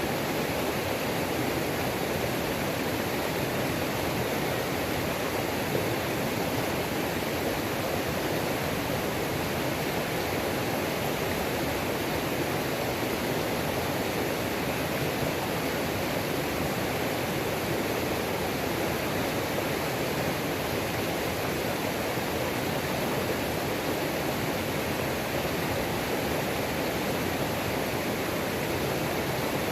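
Creek waterfall pouring over rocks, a steady, unbroken rush of water.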